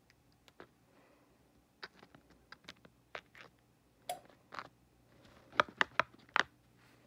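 Hands working heat transfer vinyl and its plastic carrier sheet on fabric: scattered light taps and scratches, with a quick run of sharper clicks near the end.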